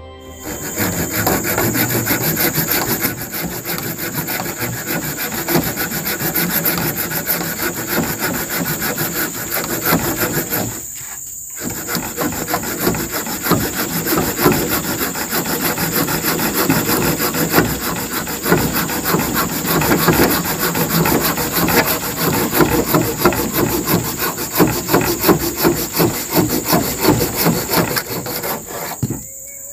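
Rapid rasping strokes of a hand tool working wood, with a short pause about eleven seconds in and a stop near the end. A steady high insect drone runs underneath.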